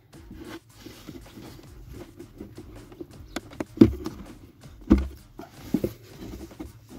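Handling noise from hands working at the plastic trim under a car's dashboard: soft rubbing and scraping, with a few dull thumps about four, five and six seconds in.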